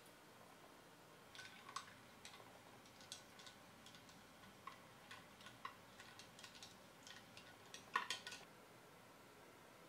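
A long metal spoon clinking against a glass tumbler while stirring a drink: light, irregular clinks, with a short cluster of louder clinks about eight seconds in.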